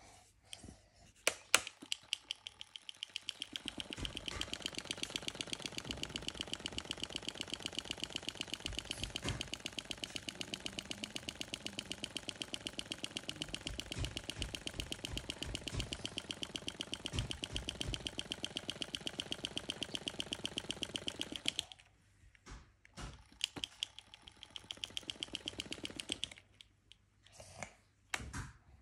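Battery-operated mini toy fan running, its small motor and spinning foam blades making a fast, even ticking. It starts about three seconds in and cuts off suddenly about three quarters of the way through, then runs again in a few short spurts.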